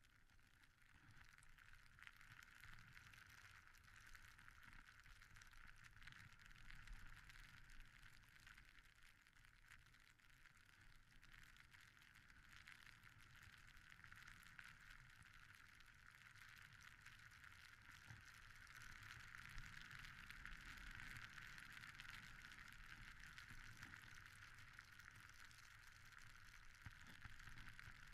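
Faint steady hiss and fine crackle of a snowboard sliding through deep powder snow, growing a little louder in the second half.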